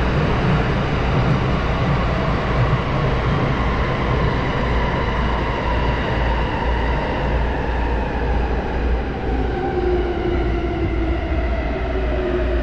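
Electric commuter train running through a tunnel, heard from inside the car: a steady rumble of wheels on the rails, with the traction motors' whine slowly falling in pitch as the train slows.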